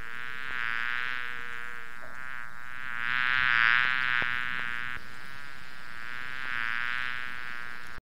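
Bee buzzing in flight, a steady dense drone that swells louder around the middle and again near the end.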